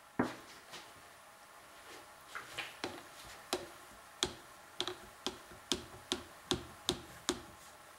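A spoon clinking against the side of a glass pitcher while stirring a drink. One sharp click comes near the start, then from about two seconds in a run of ringing clinks, roughly two a second.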